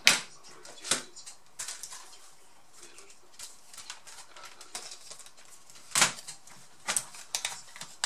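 Sharp plastic clicks and knocks as a laptop keyboard is lifted and fitted back into the palmrest during reassembly, a handful of separate strikes, the loudest right at the start and about six seconds in.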